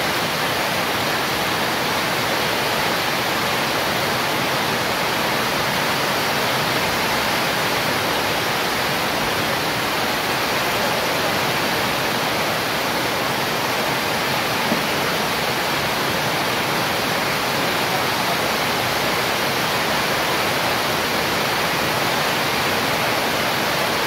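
Heavy tropical downpour falling on a corrugated metal veranda roof and the garden beyond, a steady, even hiss that does not let up.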